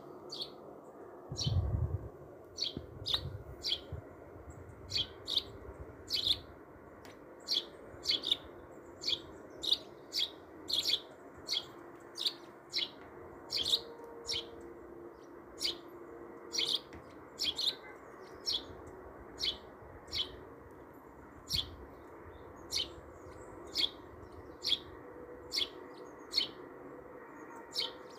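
A bird chirping over and over in short single chirps, about one to two a second, over a low steady hum. A low thud sounds about two seconds in.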